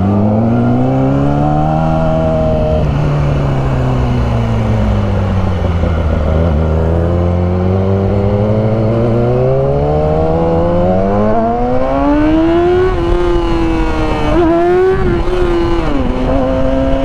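Yamaha R6 motorcycle engine accelerating and easing off. The revs rise, fall and climb again, with sudden drops at gear changes near the end before settling to a steady pitch, and wind rushes over the on-bike microphone.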